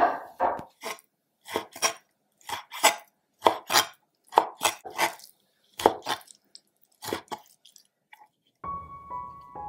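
Chinese cleaver chopping raw chicken breast on a wooden chopping board: about fifteen sharp chops, often in quick pairs with short pauses between. Piano music comes in near the end.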